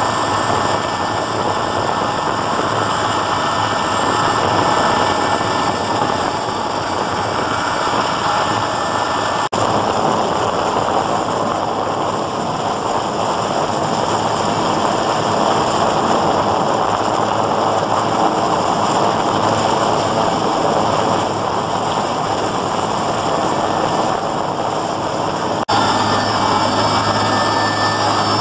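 Helicopter engine and rotor noise heard from inside the cabin: a loud, steady, unbroken din that shifts abruptly twice, about a third of the way in and near the end.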